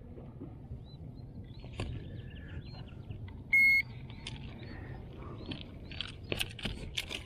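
A handheld digital fish scale gives one short, high electronic beep about three and a half seconds in. Near the end, its plastic lip-grip jaws click a few times as they are clamped onto a bass's lip.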